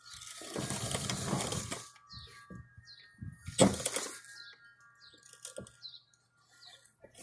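A cloth shop rag and gloved hand rubbing and handling under a car for about two seconds, then a single sharp knock a little past halfway. Birds chirp faintly in the background.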